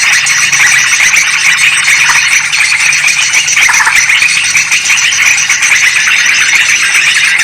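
Yellow-vented bulbuls and sooty-headed bulbuls calling over one another in a dense, unbroken chatter, a bird-lure recording meant to draw in wild bulbuls.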